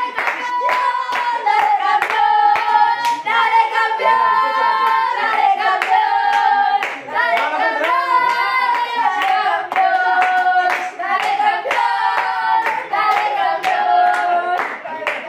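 A small group of young women singing a football chant together in high voices, clapping their hands along with it.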